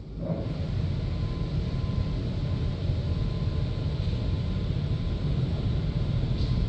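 Automatic car wash machinery running over the car, heard from inside the cabin: a loud, steady rushing noise that starts suddenly right at the beginning, with a faint steady whine above it.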